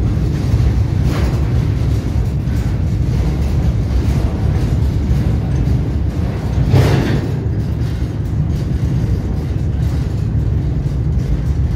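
Moving train heard from on board: a steady low rumble with wind buffeting the microphone, and one brief louder rush about seven seconds in.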